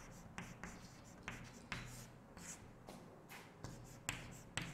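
Chalk writing on a chalkboard: a string of short, faint scratchy strokes and light taps.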